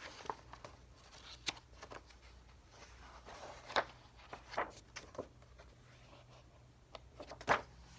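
Soft paper rustles and a few light clicks and taps from a picture book being handled, the loudest about four seconds in and again just before the end.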